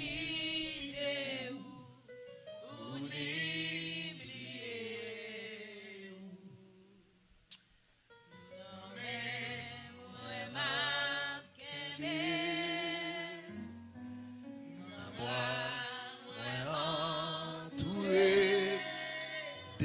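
Gospel worship song: a singing voice with vibrato over steady instrumental chords, in several phrases with a short break about eight seconds in.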